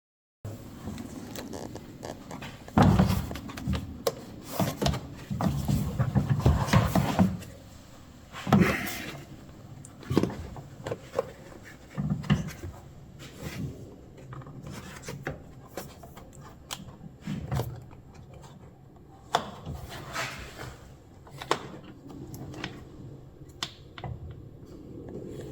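Irregular thunks, knocks and rubbing from hands working on a pickup tailgate and its plastic fittings, busiest in the first few seconds, then sparser.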